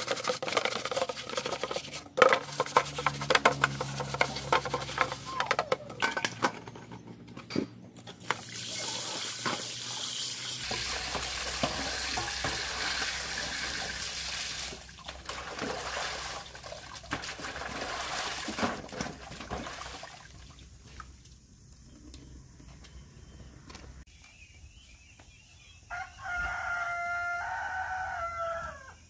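A sponge scrubbing a soapy black plastic cover in rapid strokes, then water splashing as the cover is rinsed by hand in a metal basin. Near the end a rooster crows once, for about three seconds.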